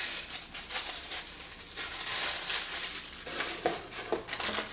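Clear plastic bag crinkling and rustling irregularly as it is handled and pulled open, loudest around the middle.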